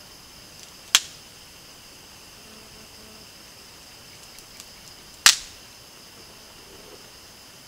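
Insects chirring steadily at a high pitch, broken by two sharp cracks about four seconds apart, the second louder.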